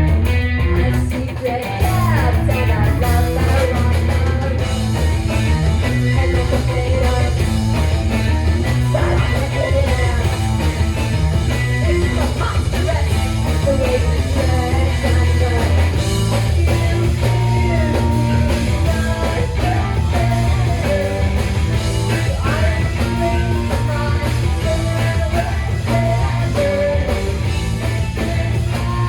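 Rock band playing live: electric guitar lines over a heavy, steady bass.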